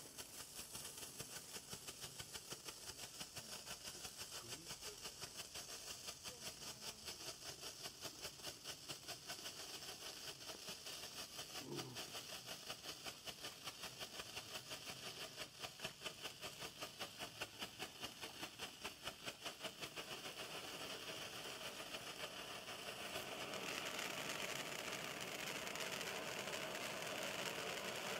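Zeus Fireworks 'Blinking Eruption' ground fountain burning, with a fast, even pulsing fizz. About 23 seconds in it turns into a louder, steady hiss as the fountain erupts into a column of sparks.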